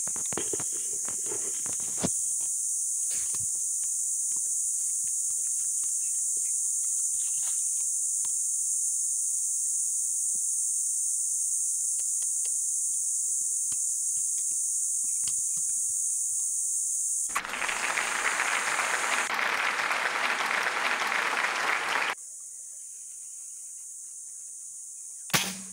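Insects buzzing in a steady, high-pitched drone, with scattered light clicks. About two-thirds of the way through, a loud rushing noise covers everything for about five seconds and stops suddenly, after which the drone is quieter. A single sharp knock comes near the end.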